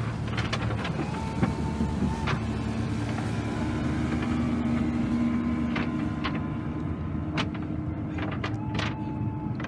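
Outboard boat motors running: a low steady engine sound throughout, joined about two seconds in by the steady drone of a bay boat running past at speed.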